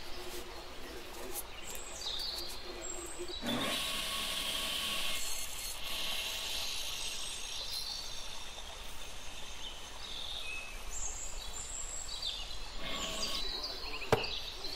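Sanding block rubbing along the rough edge of a weathered wood block, a scratchy rasp in a few stretches, with birds chirping in the background. A single sharp knock comes near the end.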